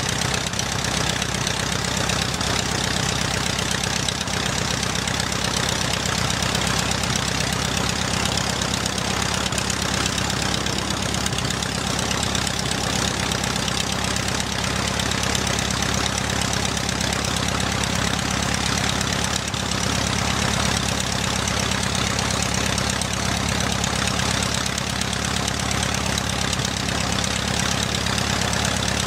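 Nieuport World War I biplane's engine idling steadily on the ground, its propeller turning, with an even, unchanging beat.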